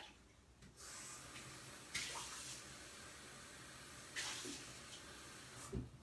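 Water running from a tap into a sink, faint, starting about a second in and stopping near the end, with the flow getting briefly louder twice.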